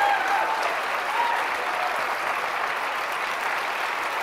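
Large audience applauding steadily, with a few voices cheering during the first second or so.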